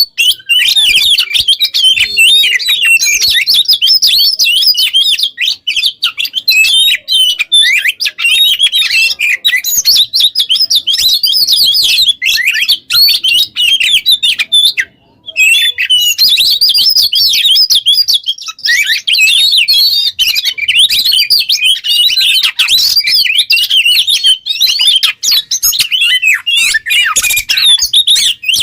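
Oriental magpie-robin singing a fast, continuous stream of varied high chirps and whistles, with one brief pause about halfway through.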